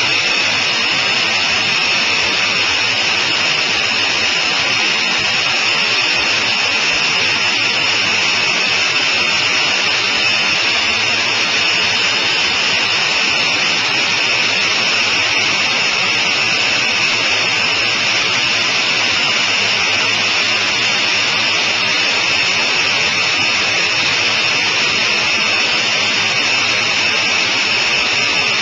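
Sonerai I light airplane in flight, heard from inside its small cockpit: a steady, hissy drone of engine and rushing air that does not change.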